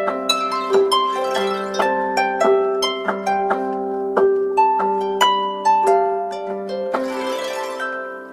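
Samsung smartphone ringtone: a harp-like plucked melody, several notes a second over a repeating low accompaniment. It fades out near the end.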